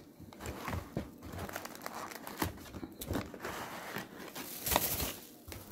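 Plastic snack packaging crinkling and rustling as it is handled, in irregular crackles with a louder burst near the end.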